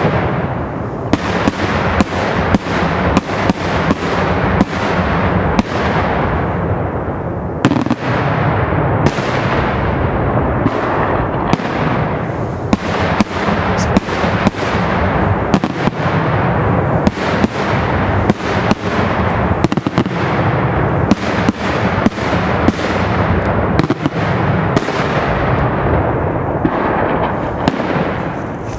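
A daytime aerial fireworks display: shells bursting overhead in a dense, continuous barrage of loud bangs, several a second, over an unbroken din of reports.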